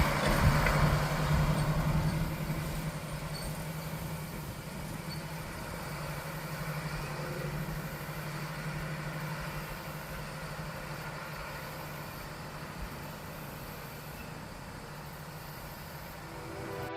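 Farm machinery engine running with a steady hum. It is loud at first, fades over the first three seconds, then holds at a lower level.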